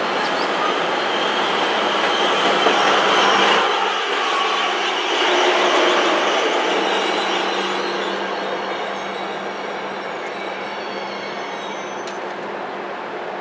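A New Jersey Transit double-deck commuter train running by on the rails, a loud steady rush of wheels and cars with a low steady hum under it. It is loudest in the first half, then fades gradually as the train pulls away.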